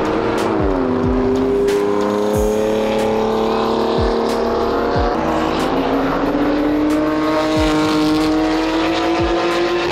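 Sports car engines accelerating hard down a racetrack straight. The engine note climbs steadily in pitch for several seconds, drops about a second in and again around five seconds in, then climbs again.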